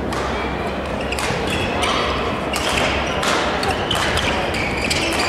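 Badminton rally: racket strings strike the shuttlecock several times, with sharp hits roughly a second apart. Players' footsteps land on the court between the hits, all echoing in a large hall.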